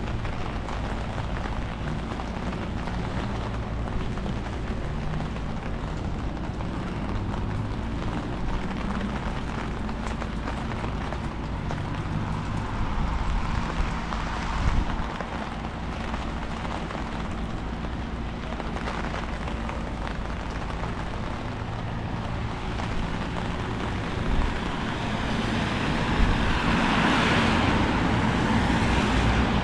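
Wet town-street ambience: a steady low rumble of wind on the microphone under a faint hum of traffic, with a louder hiss swelling up near the end, like a vehicle passing on a wet road.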